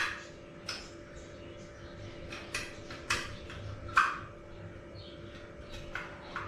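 Small metal clicks and clacks, about eight spread irregularly, as the folding pot-support arms of a compact portable gas stove are swung open and set in place.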